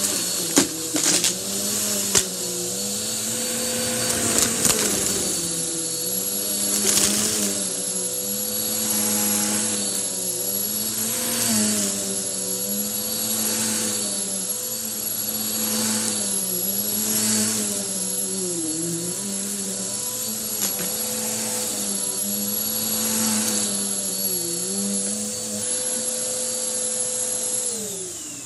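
Upright vacuum cleaner running as it is pushed back and forth over a rug, its pitch dipping and rising about every two seconds with each stroke. A few sharp clicks in the first couple of seconds as lint and paper scraps are sucked up. Near the end the motor winds down and stops.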